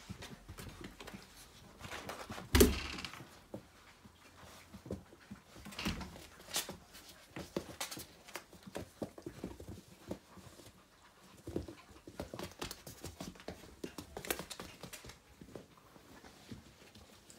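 Puppies moving about and playing: scattered clicks, taps and knocks throughout, with one loud thump about two and a half seconds in.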